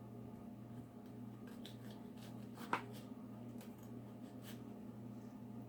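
Quiet handling of a shallot and knife on a cutting board: faint scattered taps and rustles, with one light knock about two and a half seconds in, over a steady low hum.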